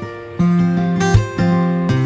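Background music: acoustic guitar playing plucked and strummed chords, changing every half second or so.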